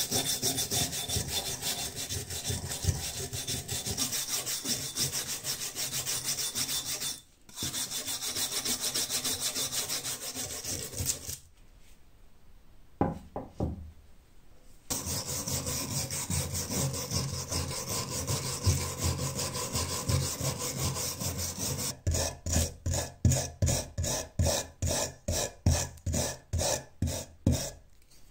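A hand brush scrubbing rust off an old steel scythe, with fast continuous back-and-forth strokes. It pauses for a few seconds midway, with a few light knocks. It then resumes and near the end turns into slower, separate strokes, about three a second.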